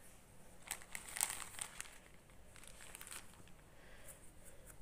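Cotton wool being pulled from a roll and packed by hand into a small metal can, the base of a homemade alcohol stove: faint, irregular soft crackling rustles, busiest about a second in.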